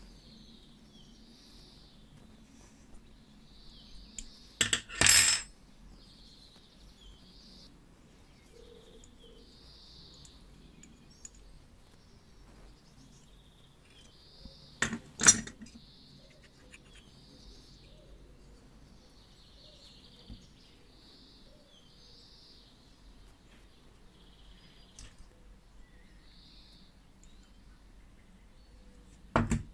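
Sharp metallic clinks of hand tools and small brass parts knocking together as a vintage Miller mini air compressor's valve head is taken apart: a short cluster of knocks about five seconds in, two more around fifteen seconds, and a single clink near the end.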